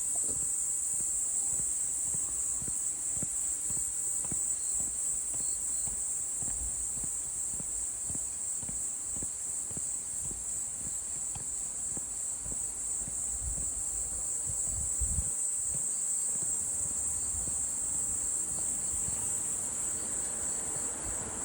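Crickets trilling in a steady, high-pitched continuous chorus. Underneath are soft, regular footsteps on a forest path, which stop about three-quarters of the way through.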